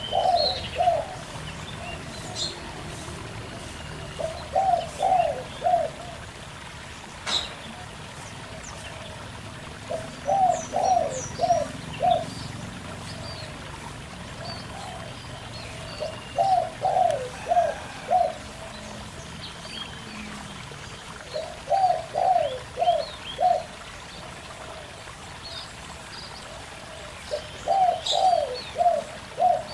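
Zebra dove (perkutut) cooing in short phrases of four or five quick notes, repeated about every five to six seconds. Underneath is the steady trickle of a small rocky stream, with faint high chirps from small birds.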